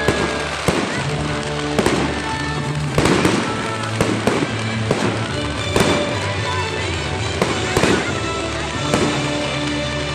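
Aerial fireworks bursting: a string of sharp bangs and crackles, about one a second and irregularly spaced, over music playing.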